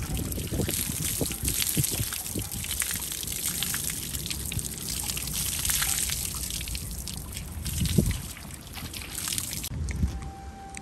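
Water from a garden hose running over whole fish on a plastic folding table, splashing and dripping off the table edge as the fish are rinsed. It cuts off near the end, with a low thump about eight seconds in.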